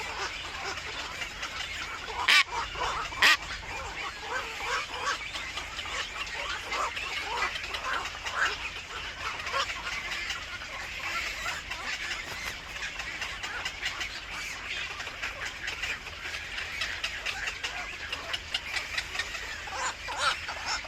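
Birds calling with many short chirps throughout. Two sharp clicks, about two and three seconds in, are louder than the calls.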